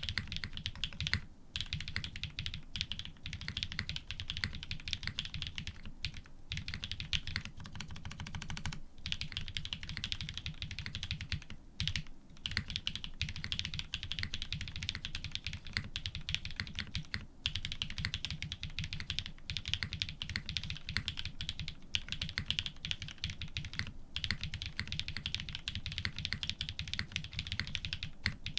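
Continuous fast typing on an F1-8x custom mechanical keyboard with lubed Cream-stem linear switches in Cherry housings, an FR4 plate and GMK keycaps: dense keystroke clacks, broken by short pauses every few seconds.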